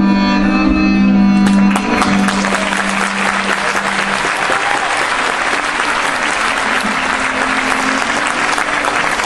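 String music ending on a long held chord, with audience applause breaking out about one and a half seconds in and continuing as the last low note dies away.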